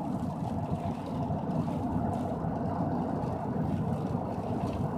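Steady road and engine noise inside a pickup truck's cab while it cruises on a rain-wet highway, the tyres running on wet pavement.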